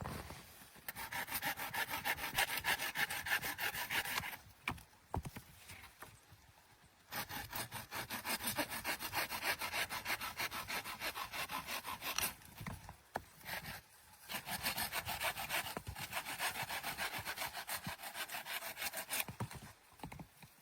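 Hand saw cutting through wood in three spells of rapid back-and-forth strokes, with short pauses between.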